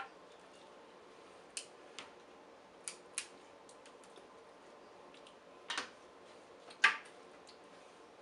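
Snow crab leg shells cracking and snapping as they are broken open and peeled by hand: a scatter of sharp separate clicks, the loudest crack about seven seconds in.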